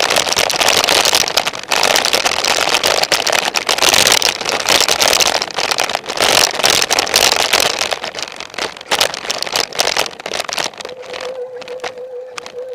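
Wind buffeting and rattling on a Contour action camera during a fast downhill ride, loud and crackly, easing off after about eight seconds. A steady, slightly wavering tone comes in near the end.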